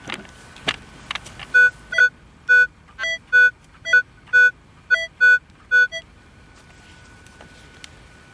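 Minelab CTX 3030 metal detector giving short, low buzzy beeps, about a dozen of them in a back-and-forth rhythm as the coil is swept over a buried target, a few beeps slightly higher in pitch. A faint steady tone hums underneath, and a few sharp knocks come just before the beeping.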